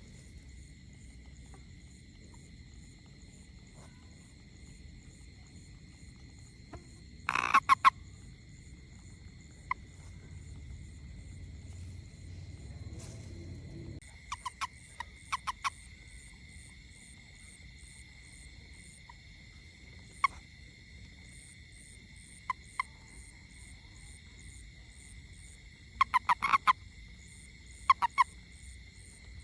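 Frog calling in short bursts of rapid croaks, loudest near the middle and again near the end, over a steady chorus of high trills.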